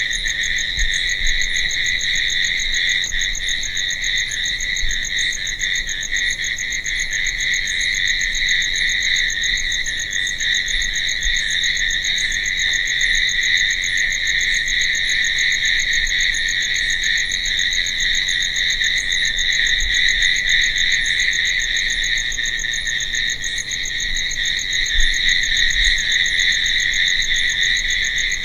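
Crickets chirping in a dense, continuous night chorus, steady throughout, with a faint higher chirp repeating about once a second.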